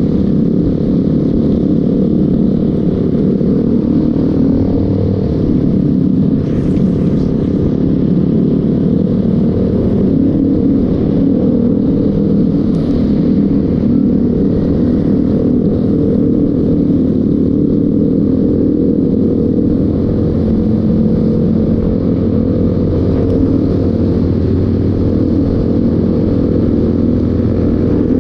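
Motorcycle engine running steadily while riding, a constant low rumble with road noise and no sharp changes.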